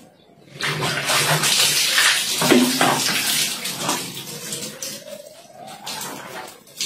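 Water poured from a plastic dipper over a person's head and splashing onto a tiled bathroom floor, a loud pour of about three seconds that then dies away. A faint rising tone follows near the end.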